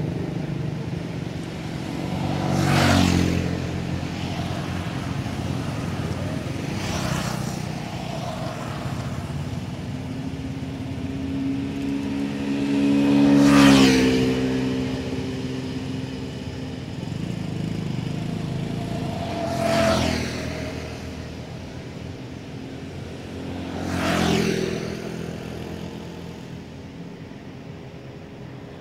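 Road traffic: motor vehicles driving past one after another, five passes that each swell and fade over about a second, the loudest about halfway through, over a steady engine hum.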